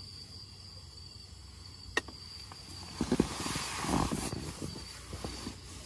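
Handling noise: a single sharp click about two seconds in, then a few seconds of rustling and small knocks as a black lidded food container is moved about, over a faint steady chirring of crickets.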